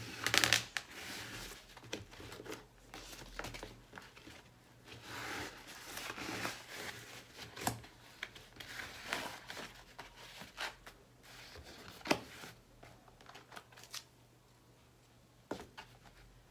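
Paper and cardboard being handled: a strip of micro-corrugated paper rustling and scraping as it is wrapped and pressed around a round cardboard base, with a few sharp taps and clicks. It goes quiet for a couple of seconds near the end.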